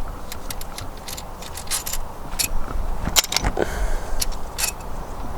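Scattered light metallic clicks and clinks, irregular, from camshaft bearing caps and their bolts being lifted off a cylinder head and set down during a camshaft removal. A couple of sharper knocks come about halfway through.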